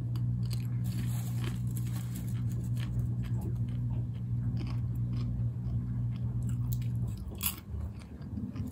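Popcorn being chewed and crunched close to the microphone, with a sharper crunch near the end. Under it a washing machine runs with a steady low hum that stops about seven seconds in.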